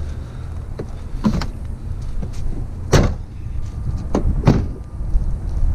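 Pickup truck cab door being handled and swung shut: a few sharp knocks and clicks, with a low rumble of wind on the microphone underneath.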